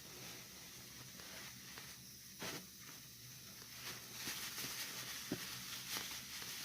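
Faint rustling and a few light clicks and knocks of things being handled, the rustle growing louder about four seconds in.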